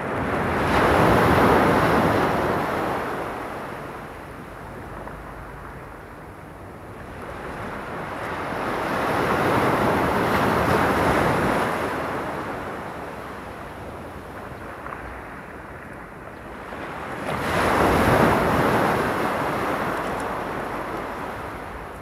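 Small sea waves breaking and washing up a pebbly shore: three slow swells of surf about eight seconds apart, each rising and fading away, the first and last the loudest.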